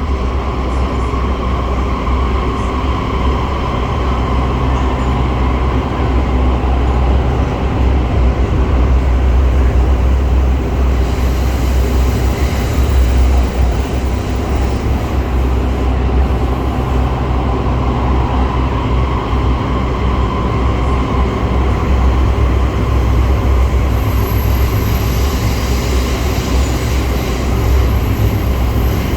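MRT Putrajaya Line train (Set 06) running between stations, heard from inside the carriage: a steady heavy rumble of the wheels and running gear with the traction motors' hum. A faint whine comes and goes twice, near the start and again around the middle.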